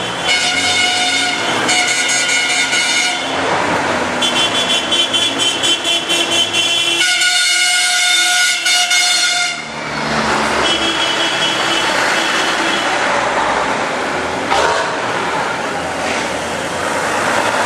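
Horns of off-road trial trucks honking again and again, in long blasts and runs of quick toots, over the engines of the trucks driving past.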